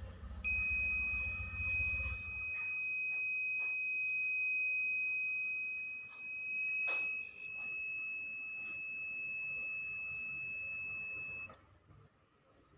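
Buzzer continuity tester giving one steady high-pitched beep as its probes touch the legs of an IRFZ44N N-channel MOSFET: the MOSFET is conducting, the sign of a good part. The beep starts about half a second in and cuts off suddenly near the end, with a low hum dying away in the first two seconds.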